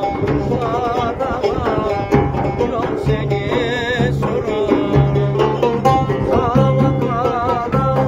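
Live Turkish folk music: a twelve-string banjo strummed fast, a large drum beating along, and a voice singing wavering, ornamented notes.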